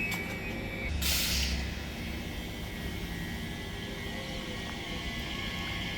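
Class 345 electric train in the station: a steady high whine stops about a second in, followed at once by a short, sharp hiss of air from its brake system, then a steady hum.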